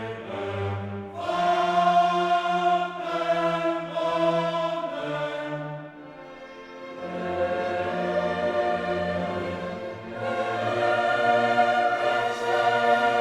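Background choral music with orchestra: a choir singing held chords in slow phrases, dipping quieter about halfway through before swelling again.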